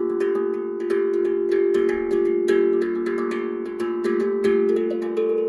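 Steel tongue drum played with the fingertips in a free improvisation, a few notes struck each second, each ringing on and overlapping the next.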